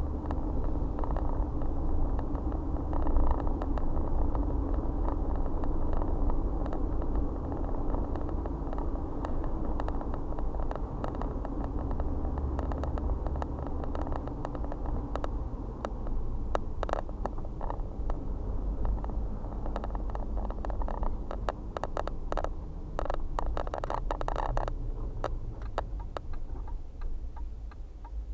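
Steady low rumble of a car's tyres and engine heard from inside the cabin while driving, easing off near the end as the car slows. A run of light clicks comes in the latter half.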